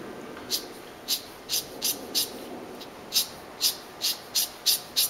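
Quick ink-brush strokes flicked across rough paper, about eleven short swishes in two runs with a brief pause between them.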